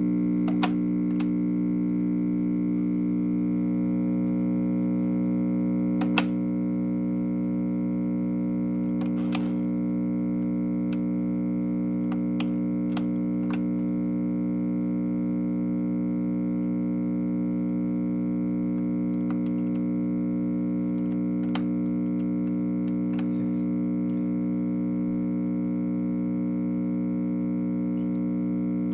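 A 1956 RCA Victor four-speed portable record player humming steadily through its speaker, a hum that the owner says means it needs some work. A few sharp clicks come from its speed selector lever being moved, the loudest about six seconds in.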